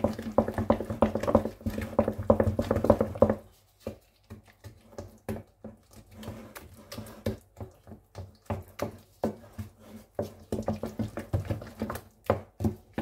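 A wooden spoon stirring a wet mash of boiled potato and beaten egg in a glass bowl, with quick, irregular squelches and knocks against the glass. A steady low hum runs under the first few seconds and stops about three and a half seconds in.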